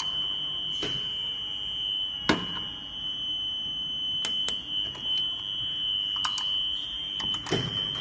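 JCW-Q03 power strip tester's alarm buzzer sounding one continuous high-pitched tone, signalling a fail because the switch of the power strip under test is turned off. A few clicks and knocks from handling the strip and its switch, the sharpest about two seconds in.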